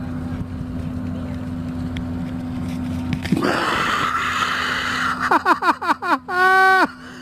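Steady low rumble with a faint hum; a little over three seconds in, a louder rushing hiss sets in. Near the end a voice gives a quick run of short cries, each falling in pitch, then one held, wavering high cry.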